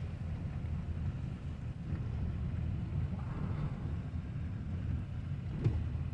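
Steady low rumble of a running vehicle, with wind buffeting the microphone and a single knock about five and a half seconds in.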